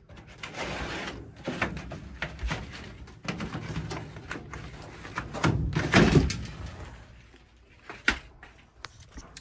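A furnace air filter and its housing being handled: irregular knocks, scrapes and rustling as the filter is worked into place, with a louder scraping thump about six seconds in.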